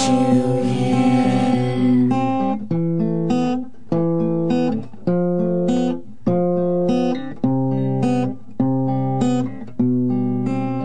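Closing bars of a song: guitar chords struck about once a second, each left to ring and fade. A fuller band sound drops away about two seconds in.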